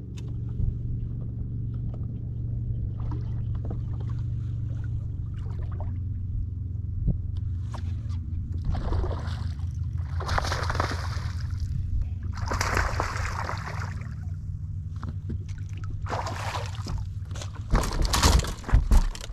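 A hooked bass splashing and thrashing at the water's surface in several loud bursts, then sharp slaps as it lands and flops on the boat deck near the end, over a steady low rumble.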